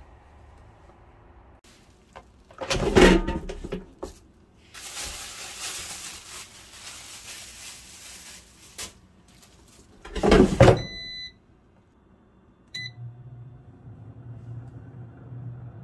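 Kitchen handling knocks around an air fryer, then short beeps from its touch panel a little after the basket goes in, and its fan starting up with a steady low hum for the last few seconds.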